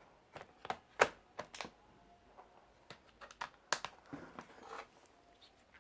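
Scattered sharp plastic clicks and knocks as a laptop battery is pushed back into its bay and the laptop is handled. The loudest clicks come about a second in and just before four seconds.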